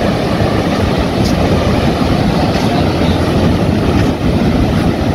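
Ocean surf breaking and washing up the beach, mixed with wind rumbling on the microphone, making a loud, steady roar.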